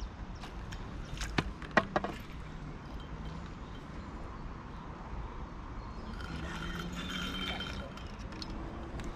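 A low rumble of wind on the microphone, with a few sharp clicks in the first two seconds and a low voice murmuring briefly near the end.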